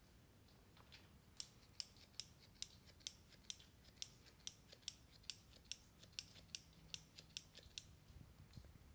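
Small red-handled snips cutting a handful of live sphagnum moss into small pieces: a run of quick, sharp snips, about two or three a second, starting about a second and a half in.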